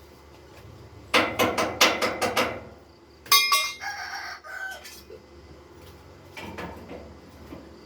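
A rooster crowing once, about three seconds in, after a quick run of about seven sharp knocks.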